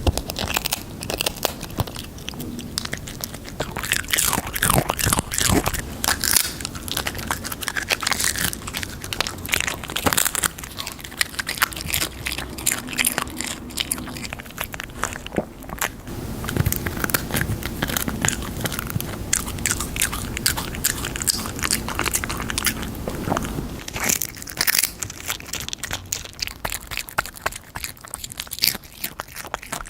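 A pet crunching and chewing crisp chips right at the microphone, with many quick, sharp crunches one after another.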